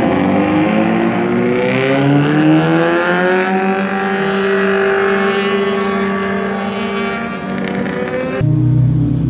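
Several sport motorcycles accelerating hard down the straight, their engine notes rising in pitch for a few seconds and then holding steady as they pull away. About eight seconds in, the sound changes abruptly to a louder, deeper engine note.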